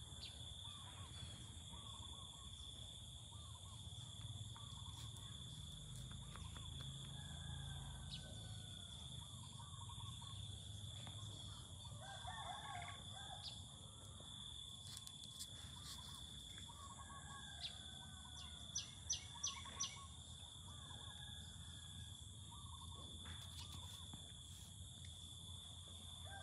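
Quiet outdoor ambience: a steady high-pitched drone, with faint bird calls coming and going. About three quarters of the way through, four sharp clicks come in quick succession.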